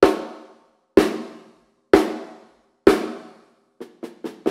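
14x5-inch Pearl Sensitone snare drum, tuned medium-high and deliberately not quite in tune, with tape on the head for muffling, struck four times about a second apart, each stroke ringing out briefly. Near the end, softer and quicker strokes start and build toward a roll.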